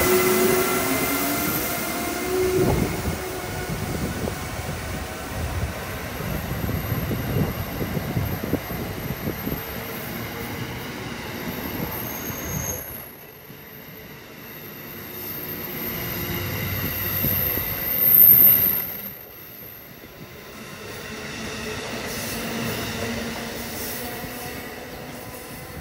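Amtrak ACS-64 electric locomotive and Amfleet passenger cars passing close by. The locomotive's whine drops in pitch as it goes past, then the cars' wheels rumble and knock on the rails. A high wheel squeal swells to its loudest about two-thirds of the way through, and the train's sound then fades as it pulls away.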